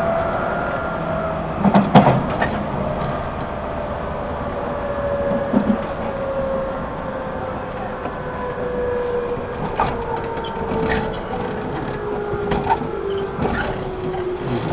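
Running sound inside a JR 211 series 5000 subseries electric multiple unit motor car: the traction motor and gear whine falls steadily in pitch as the train slows, over rumbling running noise. A few sharp knocks come through, the loudest about two seconds in.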